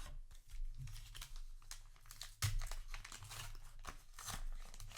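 Plastic trading-card booster pack wrapper crinkling and being torn open, with cards handled: a run of short crackles, loudest about halfway through.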